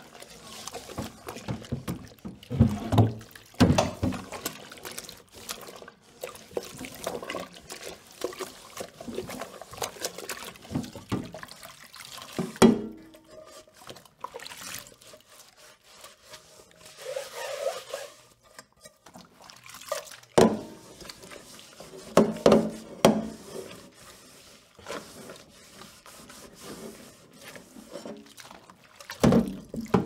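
Dishes being washed: water splashing and trickling while dishes knock and clatter against each other at irregular intervals. The loudest knocks come about twelve and twenty seconds in, and there is a quieter spell a little past the middle.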